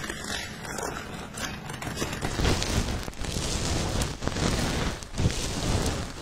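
A thin plastic disposable glove crinkling as it is handled. About two and a half seconds in this gives way to a denser gritty crackling: a gloved fingertip rubbing a granular scrub over the lips to exfoliate dead skin.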